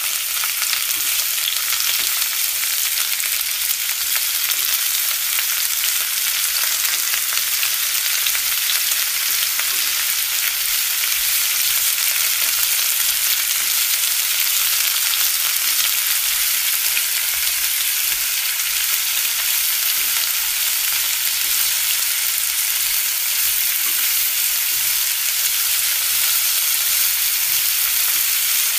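Lechon rolls shallow-frying in hot oil in a nonstick pan: a steady sizzling hiss of oil with fine crackling pops.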